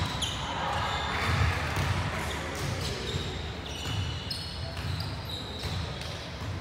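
Volleyball players' shoes squeaking in short chirps and shuffling on a hardwood court, with dull thuds of footsteps, all echoing in a large sports hall.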